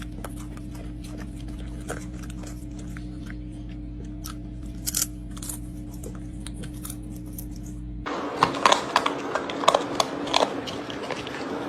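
A puppy chewing: scattered small crunches and clicks over a steady electrical hum. About eight seconds in, the hum drops away and the crunching becomes louder and denser.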